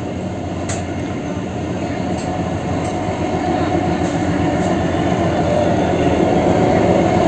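Narrow-gauge diesel locomotive approaching on the adjacent track, its engine drone growing steadily louder.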